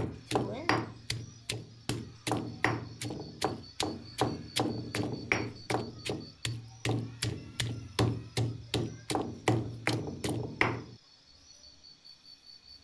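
Stone pestle pounding shallots, green chillies, curry leaves and spices in a stone mortar, about three strokes a second. Each stroke is a dull thud with a short ringing knock of stone on stone. The pounding stops abruptly about eleven seconds in.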